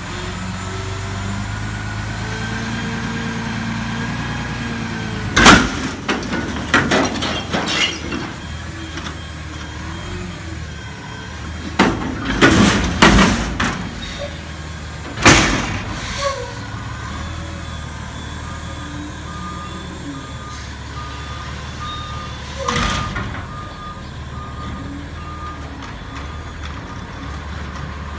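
Front-loading garbage truck emptying a steel commercial dumpster. The engine revs up to drive the hydraulic forks, then loud metallic bangs and clangs come as the bin is tipped and shaken over the cab, in several rounds over the next ten seconds. Near the end a backup alarm beeps steadily as the truck reverses.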